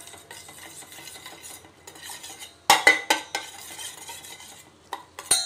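A spoon stirring and scraping in a stainless steel pan of melting, caramelizing sugar, clinking against the pan's sides. The loudest scrapes and clinks come about halfway through and again near the end.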